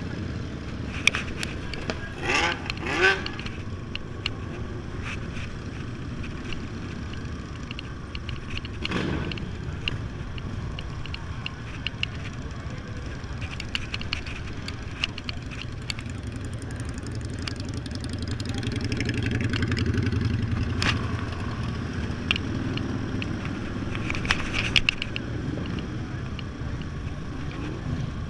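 Yamaha Zuma 125 scooter riding slowly, its small single-cylinder engine running steadily amid other motorcycle engines. A louder engine drone swells and fades about two-thirds of the way through.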